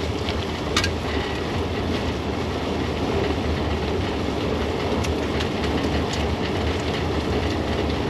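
Boat trailer rolling on asphalt, heard from right under it by the wheel and freshly replaced axle: steady tyre and road rumble with rattling, and a few sharp ticks, the clearest about a second in and another about five seconds in.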